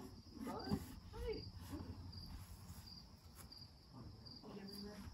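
Cricket chirping outdoors, a thin high chirp repeating regularly about every two-thirds of a second, with faint voices in the first second or so.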